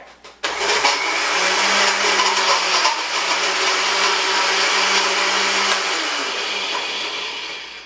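Countertop blender switched on about half a second in, running steadily as it blends milk and vanilla ice cream, then switched off about six seconds in and winding down.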